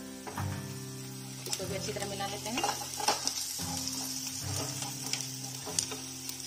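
Chopped onions and spice powder sizzling in hot oil in a nonstick kadai while a wooden spatula stirs and scrapes them, with irregular clacks of the spatula against the pan.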